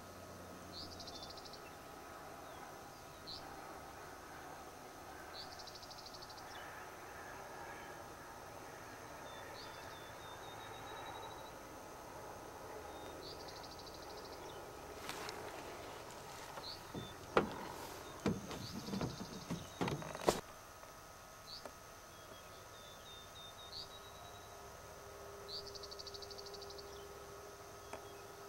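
Open-field ambience with short high buzzy trills and chirps of insects and birds repeating every few seconds. A cluster of sharp knocks and bumps comes a little past the middle, and a low steady hum starts about two-thirds of the way through.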